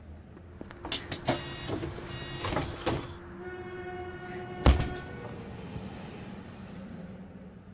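Electric tram sounds: a run of clicks and clunks, a steady tone with overtones lasting a few seconds, and one loud clunk about halfway through, then a faint high whine.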